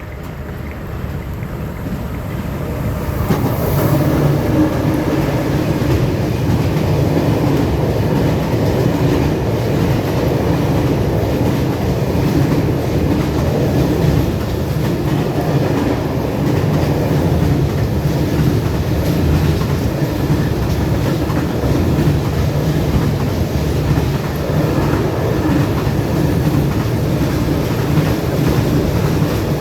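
Train running through a railway station, a steady rumble with wheels clattering over the rails, growing louder over the first few seconds and then holding steady.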